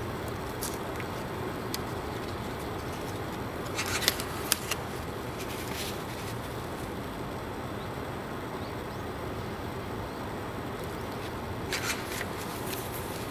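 Pages of a small handmade paper booklet being turned by hand: a few short paper flicks and rustles about four seconds in and again near the end, over steady background noise.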